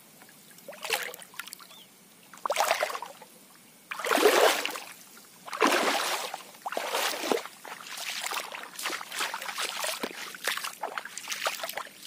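Swamp water sloshing and swishing in irregular strokes as a person wades through it, the strokes coming close together and nearly without pause from about two-thirds of the way through.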